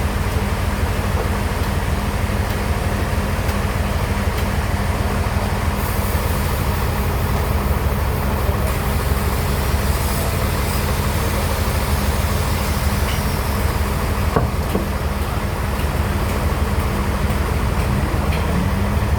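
Sawmill bandsaw machinery running steadily with a loud, low hum.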